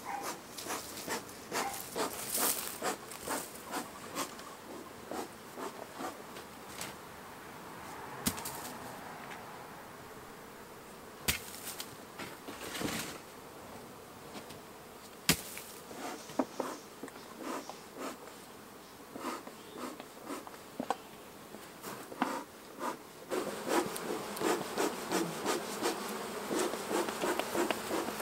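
Honey bees buzzing around open beehives, with single bees zipping close past the microphone again and again. Over the last few seconds the buzz grows denser and louder as more bees fly close.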